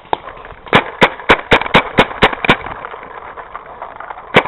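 Paintball marker firing a rapid string of about eight shots at roughly four a second, then a pause and two more quick shots near the end.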